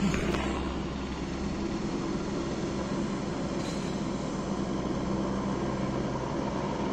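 Helicopter running steadily on a lifting job, a continuous low drone with a dense, even noise over it.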